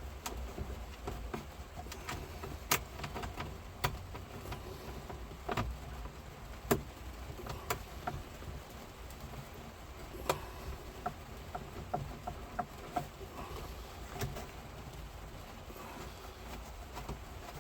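Scattered light clicks and taps of hand work as screws are fitted through a glove box liner into the dash, with a steady low hum underneath.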